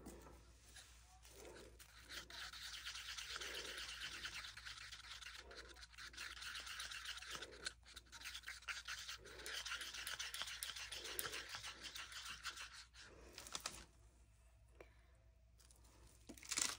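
A wooden stir stick scraping round the inside of a mixing cup as epoxy resin is stirred: a faint, steady scratchy swishing with a slow stroke about every two seconds, stopping about 14 seconds in. A brief knock near the end.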